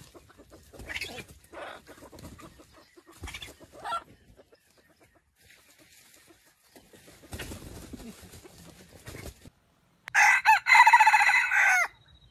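Red junglefowl rooster crowing once, loud and about two seconds long, near the end. Before it come scattered soft rustles and scratches in dry leaf litter.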